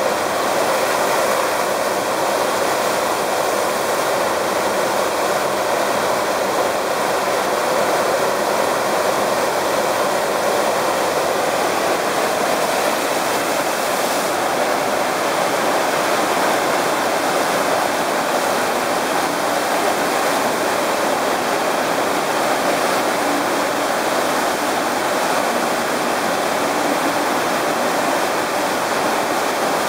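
A FlowRider sheet-wave machine's pumped water rushing steadily up its padded slope: one unbroken, loud rush of water.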